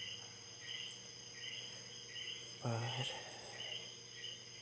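Crickets chirping in the background, a short chirp repeating about every 0.7 seconds over a steady high-pitched tone.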